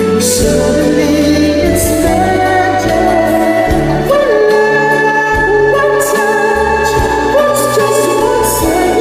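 Ballad with a singer holding and sliding long notes over full instrumental backing.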